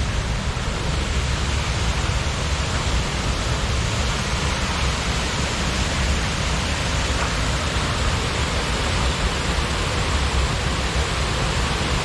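Waterfall running steadily: a constant, even wash of falling water with a deep rumble beneath it.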